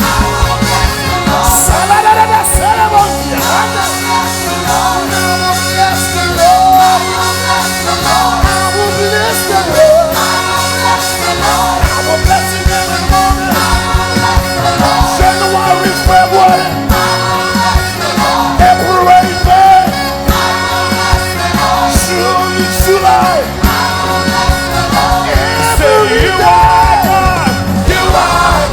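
Live worship band playing with sustained singing over a steady bass line and drum hits.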